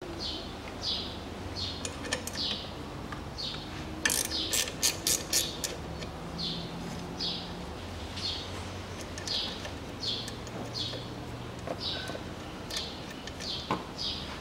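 Hand ratchet wrench clicking in a quick run of about eight clicks a few seconds in, backing out a bolt on the A/C line bracket. A bird chirps in short high notes about twice a second throughout.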